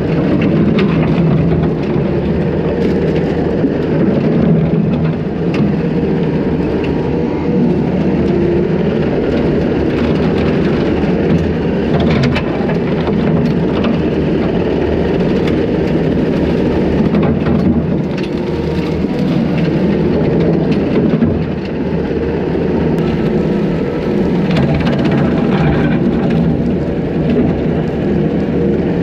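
Takeuchi TL250 compact track loader's diesel engine running steadily under load while its hydraulic brush cutter attachment spins through wet grass and brush, with scattered sharp ticks.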